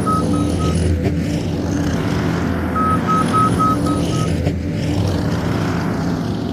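New Holland C232 skid steer's diesel engine running steadily while its back-up alarm beeps in short runs of about three beeps a second, once at the start and again about three seconds in, as the machine reverses.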